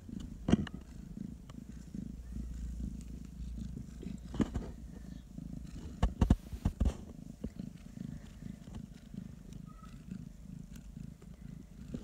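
Bengal cat purring steadily close up, with a few brief sharp knocks and rustles over it.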